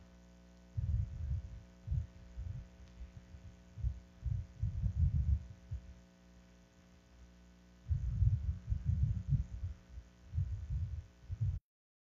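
Steady electrical hum with irregular low thumps and rumbles on top, starting about a second in, pausing briefly in the middle, then returning. The sound cuts off abruptly just before the end.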